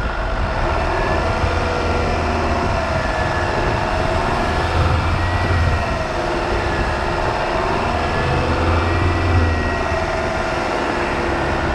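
A side-by-side utility vehicle (UTV) driving: a motor whine slowly rising and falling with speed over a steady low rumble.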